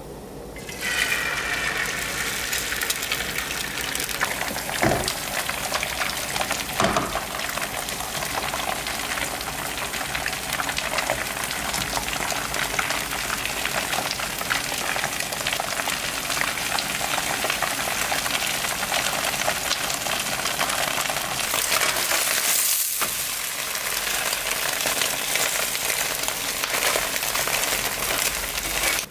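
Beaten egg sizzling in a hot, oiled frying pan. The sizzle starts about a second in as the egg hits the pan, then settles into a steady crackle as the egg sets into a thin sheet.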